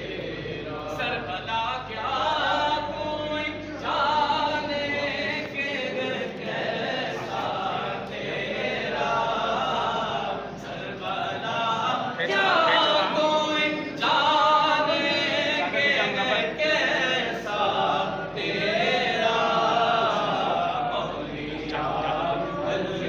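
A group of men chanting together in unison, in phrases a few seconds long, as a crowd's greeting chant.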